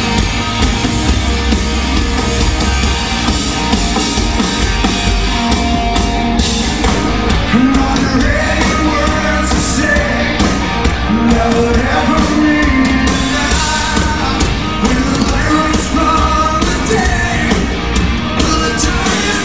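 Loud rock music from a full band, with a lead vocal coming in about seven or eight seconds in.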